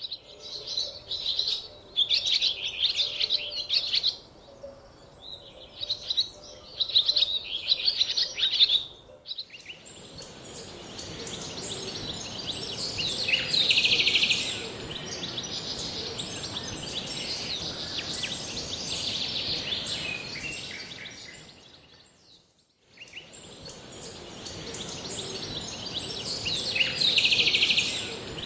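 Birds chirping in repeated short bursts. About nine seconds in this gives way to a steady noisy background with a constant high-pitched hiss, with occasional bird calls over it.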